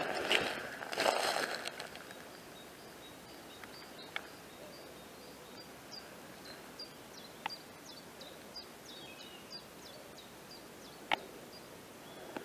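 Footsteps crunching through dry bracken for the first second or so, then they stop. In the quiet that follows, a small bird sings a long run of short high chirps and slurred notes, with three sharp clicks, about a second, four seconds and seven seconds apart.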